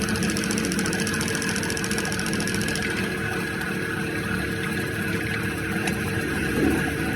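Electric grinder used for sharpening drill bits, running steadily with a constant hum and a hiss above it. A fine, rapid ticking high in the sound stops about three seconds in.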